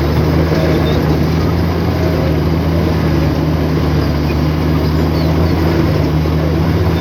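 Heavy diesel engine of earthmoving equipment running steadily under load, a deep, even drone with no change in speed.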